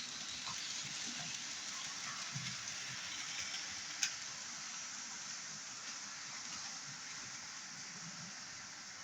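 Hornby class 56 model diesel locomotive running on model railway track: a steady hiss of motor and wheels on the rails, with one sharp click about four seconds in.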